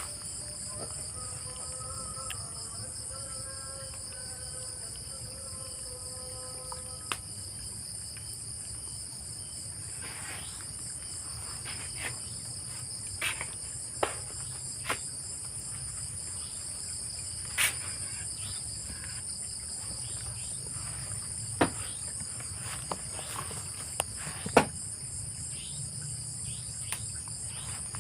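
Crickets trilling steadily in a high, continuous chorus. Faint wavering tones come through for the first several seconds, and scattered sharp clicks and knocks come later.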